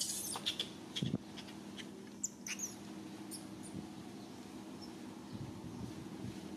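Short high-pitched animal squeaks and chirps, several in the first three seconds, over a steady low hum.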